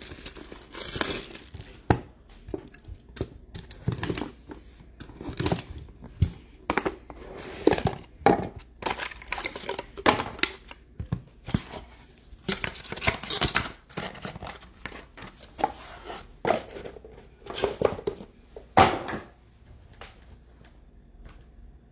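Football trading card packs being torn open, their wrappers crinkling and crackling in irregular bursts, which die down near the end.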